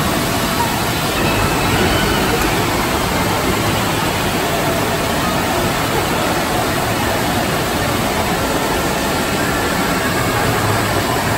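Steady, loud rushing-water noise of an indoor water park hall: water pouring through the slides, the lazy river and a rock waterfall, with the hall's echo.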